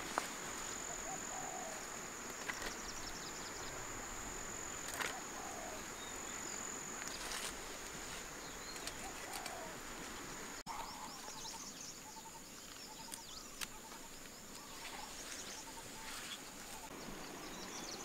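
Field ambience: a steady high-pitched insect drone with faint scattered bird chirps and a few soft clicks. It drops out for a moment just past halfway.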